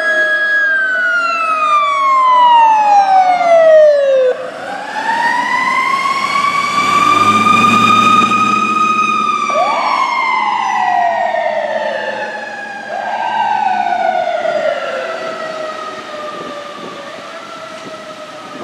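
Fire department emergency vehicle sirens: a wail that falls, then rises slowly and falls away over several seconds, overlapped by a second siren that twice rises quickly and slides back down. A truck engine rumbles past in the middle, and the sirens fade toward the end.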